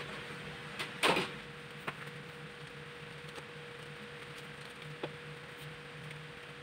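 Disposable examination gloves being taken out and pulled onto the hands: a short rustle about a second in, then a few faint ticks, over a low steady hum.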